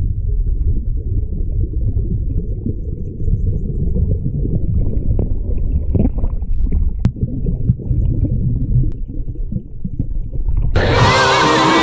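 Flowing mountain-stream water heard from underwater: a steady, muffled low rumble, with an occasional sharp click. Music with singing starts abruptly near the end.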